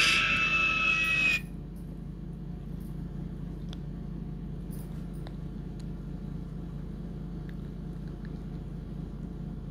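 A children's cheetah song playing from a phone speaker cuts off abruptly about a second and a half in as the video stalls to a loading spinner. A steady low hum with a few faint ticks remains.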